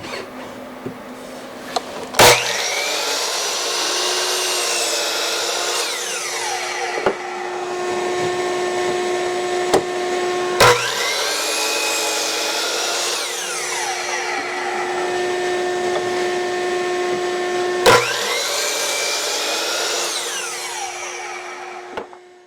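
Power miter saw making three crosscuts through a 2x4, about seven to eight seconds apart. Each starts with a sharp click and a rising whine as the motor spins up, then runs with a steady hum through the cut.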